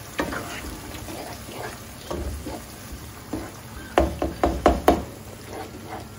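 Wooden spoon stirring a wet tomato and onion mixture in a frying pan, knocking against the pan as it goes, with a quick run of about six louder knocks about four seconds in.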